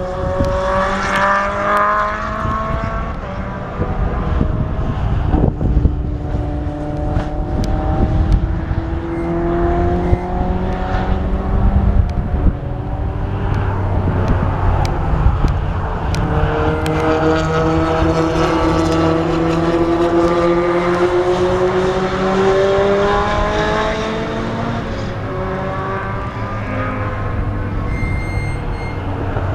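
Several race cars' engines accelerating through a bend one after another, their pitch climbing and dropping with gear changes as each car passes.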